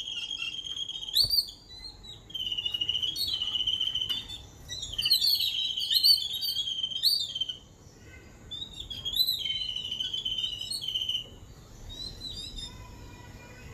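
Babblers calling: four bursts of high, rapid chattering notes, each a second or two long, while an adult feeds a chick through the cage wire. The calls fade near the end.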